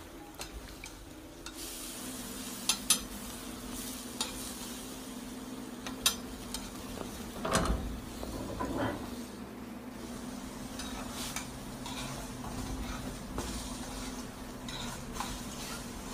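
Food frying in oil in a pan, sizzling steadily from about a second and a half in. A metal utensil clicks sharply against the pan twice in quick succession about three seconds in and again about six seconds in, with a louder clatter near the middle.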